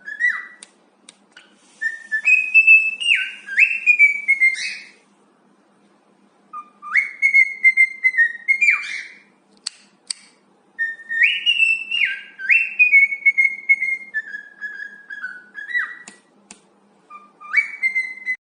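A parrot whistling a tune: clear notes that step and slide in pitch, in phrases of a few seconds separated by short pauses.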